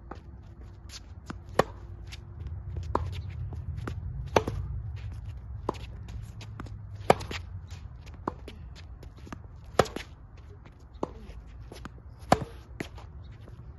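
Tennis ball being struck back and forth in a baseline groundstroke rally on a hard court. A sharp crack of a racket hit comes about every two and a half seconds, with fainter hits and ball bounces between them and shoes scuffing on the court.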